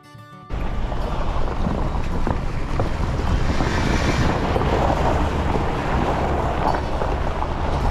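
Wind buffeting the microphone: a loud, rushing rumble, heaviest in the low end, that starts suddenly about half a second in.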